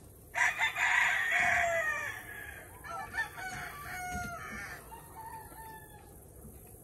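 Rooster crowing: one loud crow starting about half a second in and dropping in pitch at its end, followed by a few seconds of fainter crowing.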